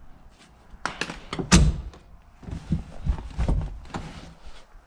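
Irregular thunks and clunks of a car seat and its metal slide rails being handled and fitted in place, seven or so separate knocks with the loudest about a second and a half in.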